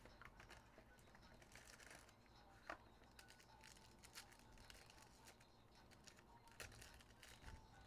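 Near silence with faint rustles and small clicks of a stack of trading cards being handled and shuffled, and a couple of slightly sharper ticks.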